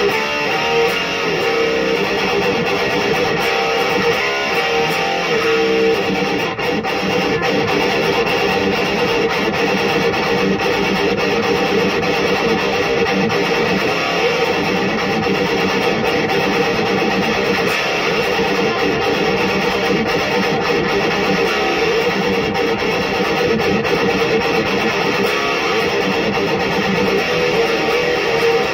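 Solar electric guitar played through a BLACK CAT Amps Djenttonic distortion pedal and an Electro-Harmonix 44 Magnum power amp, a continuous heavily distorted metal riff.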